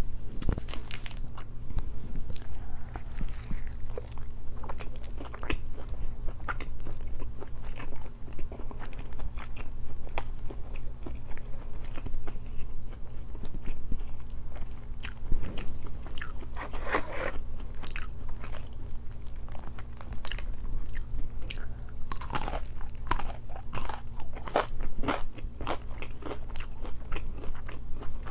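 Close-miked chewing and biting of a chicken wrap: irregular crunches and wet mouth clicks.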